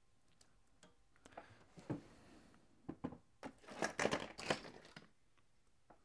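Faint rustling and light clicks of hands handling an XT60 connector and its wires, busiest from about three and a half to five seconds in.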